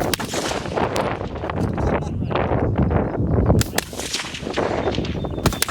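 Wind buffeting the microphone in a steady low rumble. Several sharp cracks of fullbore rifle shots come from the firing line: one near the start, a pair in the middle, and a pair near the end.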